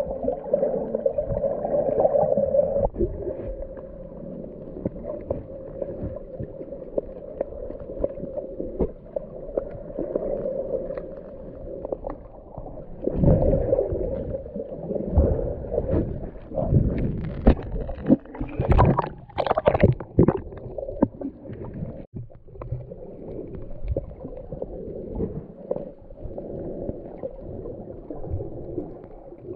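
Muffled underwater sound of the sea picked up by a submerged camera: a steady low hum with gurgling and bubbling. Midway there is a stretch of louder, irregular splashing and bubble bursts from a snorkeller moving near the surface.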